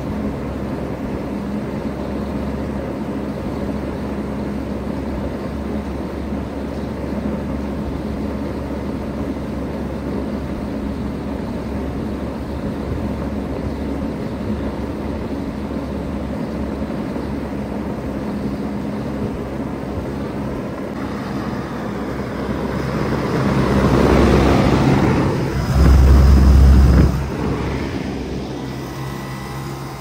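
Bard 3-ton wall-mounted heat pump running steadily in cooling mode: a steady mechanical hum with a low tone. Near the end, a louder rushing swell and a short, strong low rumble rise over it, then the hum drops back a little quieter.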